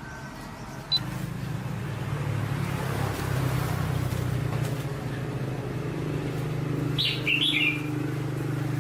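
A click about a second in, then a machine runs with a steady low hum. A small bird chirps briefly near the end.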